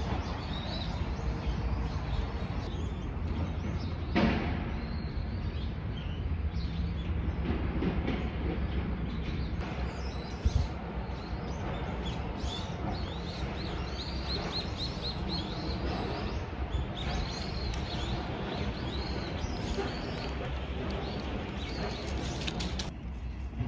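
Small birds chirping over a steady low rumble, with two brief knocks, about four and ten seconds in.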